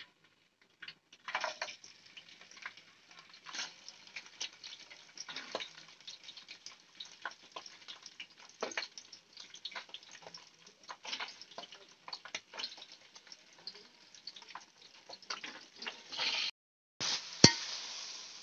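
Boiled mutton pieces going into hot oil with whole spices in a kadhai, sizzling with many irregular crackles and pops of spattering oil. Near the end, after a short break, a denser, louder sizzle as the meat is stirred, with one sharp knock.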